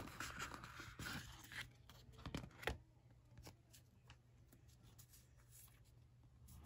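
A frosted plastic zip pouch rustles as a stack of card stickers is slid out of it, with two sharp clicks about two and a half seconds in. After that come faint ticks of the card stickers being handled.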